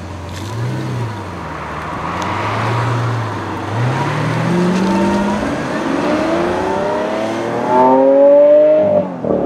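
Lamborghini Aventador LP700-4's 6.5-litre V12 on its stock exhaust, blipped once and then accelerating away, the engine note rising steadily as it pulls off. It is loudest near the end, then drops off suddenly just before the end.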